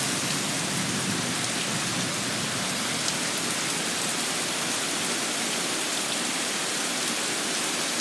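Heavy storm rain pouring down steadily, an even hiss that does not let up, in strong wind.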